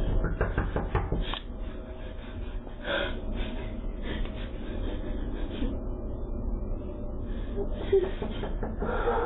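Doorbell-camera audio of a distressed woman breathing hard and gasping, over a steady low rumble. A few sharp knocks come in the first seconds.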